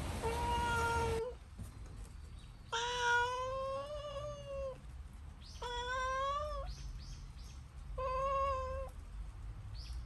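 A cat meowing again and again: long, drawn-out meows, the longest lasting about two seconds, with a few short, faint calls in between.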